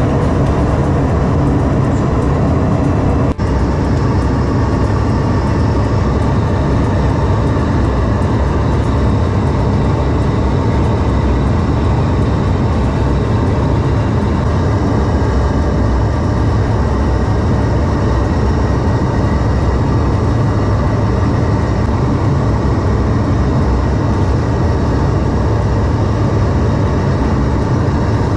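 Steady jet aircraft engine noise during in-flight refuelling, heavy in the low end, with a brief dip about three seconds in.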